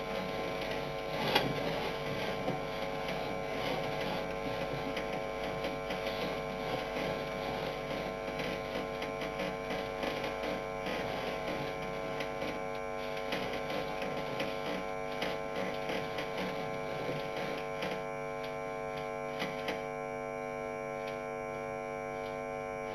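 Steady electrical mains hum made of several fixed tones, with a sharp knock about a second in and a few faint rattles later.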